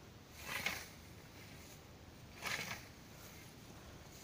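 Hand scythe swinging through tall grass: two swishing cuts about two seconds apart, the first about half a second in and the second about two and a half seconds in.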